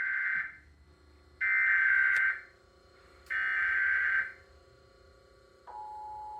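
Emergency Alert System SAME header: three short bursts of warbling digital data tones, each about a second long with about a second of quiet between, encoding a Required Monthly Test. Near the end the EAS two-tone attention signal starts and holds steady.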